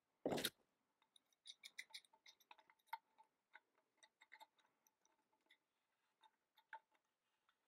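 Small metal clicks and ticks of a wrench being fitted to and turned on a faucet's retaining nut during reassembly, after one sharper clack of a tool picked up from a tool tray near the start.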